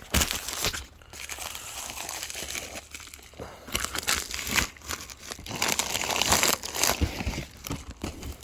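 Shipping package being cut and torn open by hand, its packaging crinkling and tearing in irregular bursts.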